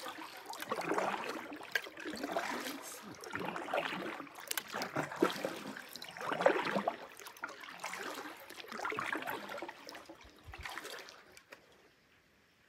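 Canoe paddle strokes on calm water: a swish and trickle of water repeating about every one and a half seconds, dying away near the end.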